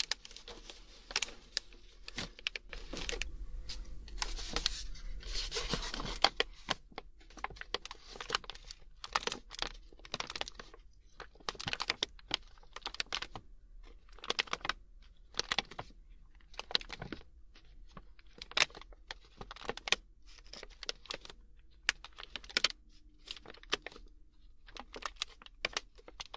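A snack bag being handled close to the microphone: the packaging crinkles and rustles for a few seconds near the start, then gives many short, sharp taps and clicks.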